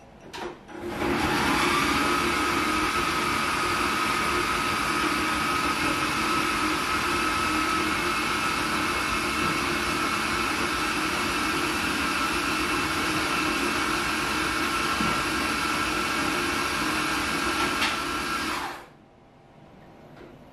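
Electric blender running steadily for about 18 seconds, pureeing food; its motor whine rises as it spins up about a second in and falls away as it stops near the end.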